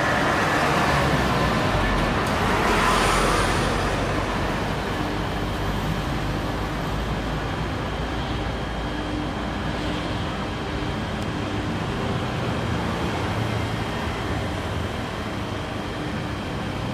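Jet engines of an Airbus A320-family airliner running at high power as it rolls along the runway: a broad, steady rush with a faint whine, swelling about two to three seconds in.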